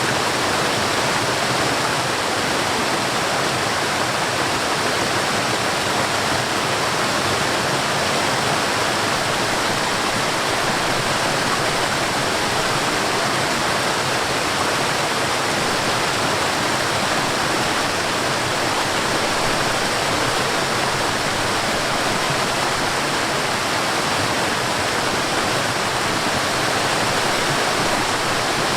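Mountain stream and waterfall: water rushing steadily, an even unbroken hiss with no changes.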